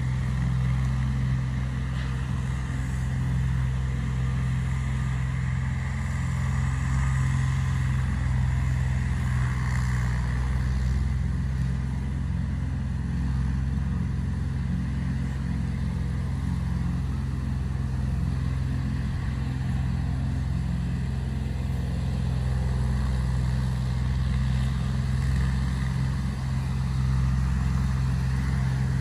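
Diesel engine of an IHC 553 tractor, a three-cylinder, running steadily at working speed while driving a Deutz-Fahr KM22 mower through the hay.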